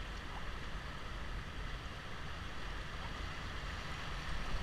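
Steady rush of river water running over a shallow, rocky shoal around a raft, with a low rumble underneath.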